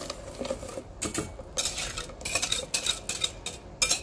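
Metal utensil stirring custard mixture in a stainless steel saucepan, with a run of irregular scrapes and clinks against the pan.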